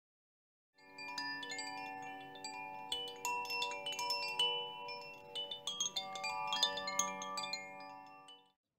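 Chimes ringing: many overlapping struck metal tones that sound on, starting about a second in and fading out near the end.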